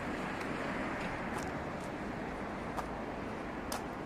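Steady outdoor town noise like distant road traffic, with a few short sharp clicks, the loudest near the end.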